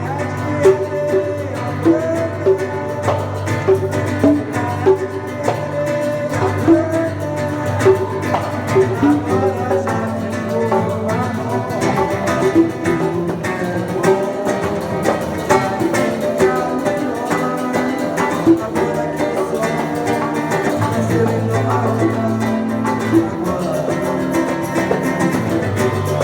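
Acoustic guitar played live in a steady instrumental passage of plucked and strummed notes, with frequent sharp percussive hits mixed in.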